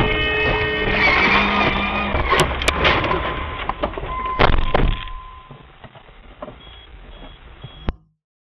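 Car horn sounding a steady note for about the first second, over street traffic and car noise picked up by a dash camera. The noise then fades away about five seconds in.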